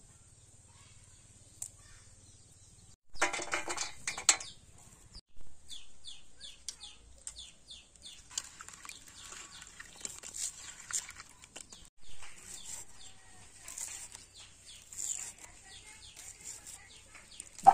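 Birds chirping and calling in repeated short falling notes, with a farm animal's call a few seconds in and a sharp knock right at the end.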